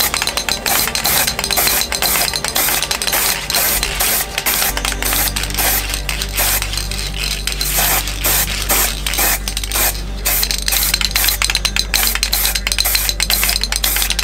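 Aerosol spray-paint can being worked: its mixing ball rattles in rapid metallic clinks as the can is shaken, with spray hiss, while a steady low hum runs underneath from about five seconds in.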